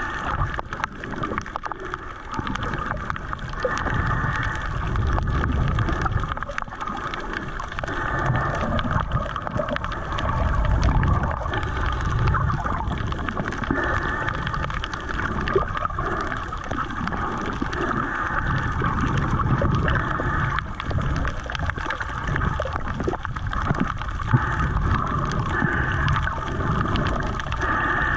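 Water gurgling and sloshing picked up underwater, muffled, with low rushing swells that rise and fall every few seconds.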